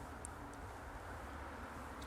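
Quiet pause between spoken phrases: faint steady background hiss of room tone, with two tiny soft clicks early on.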